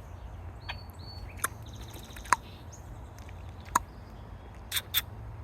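Small wild birds at a feeding spot: a short high whistled call and a faint chittering, with several sharp ticks scattered through, two close together near the end, over a steady low hum.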